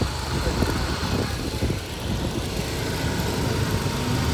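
A moving motor scooter and the road under it, with wind rumbling over the microphone as it rides.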